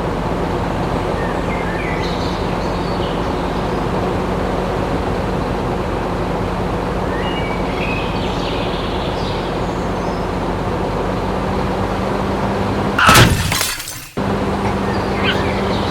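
A small motor hums steadily. About thirteen seconds in, a loud crash rings out, and the sound drops out for about a second before the hum comes back.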